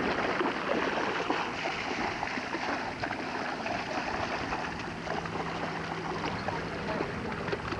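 Small waves lapping and trickling at the water's edge, a steady crackling wash of water noise, with a faint steady low hum underneath at times.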